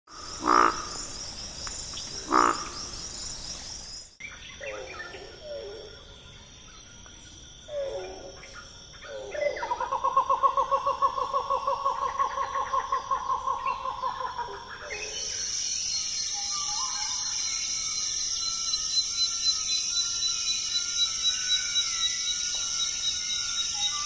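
Central African rainforest wildlife recordings cut one after another. First come two loud falling calls over a pulsing high chirping. After a cut there are assorted animal calls and a rapid pulsing call lasting about five seconds. From about fifteen seconds in, a dense, steady, high-pitched insect chorus takes over.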